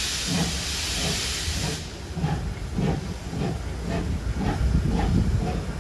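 Steam locomotive letting off steam: a loud hiss that cuts off suddenly about two seconds in. Under it runs a regular low beat of about two knocks a second.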